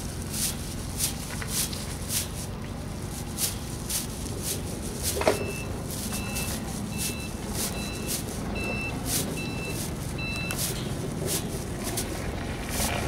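Scattered clicks and rustles of plastic artificial-hedge strands being pushed down through chain-link fence mesh, over a steady low hum. About five seconds in there is a sharp knock, then a run of about nine short beeps, roughly two a second, like a reversing alarm.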